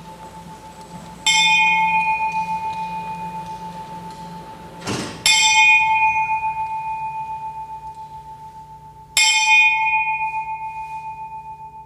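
A bell struck three times, about four seconds apart, each stroke ringing and slowly fading. A short rising whoosh leads into the second stroke.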